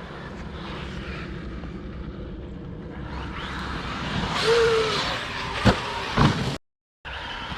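Electric RC monster truck running over rough ground: a steady low rumble, then the brushless motor whines up briefly about halfway through, followed by two sharp knocks half a second apart as the truck hits or lands.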